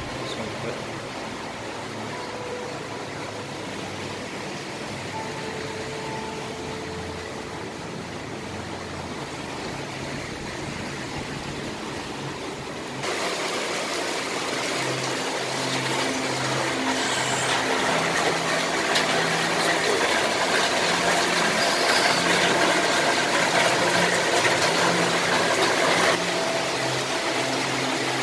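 Heavy rain falling steadily, muffled at first, then louder and closer from about halfway through, with a faint low hum underneath.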